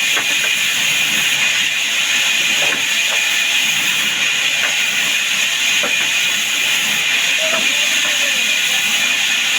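Woodworking machine running steadily: an even hiss with a faint high whine, and light clicks about once a second.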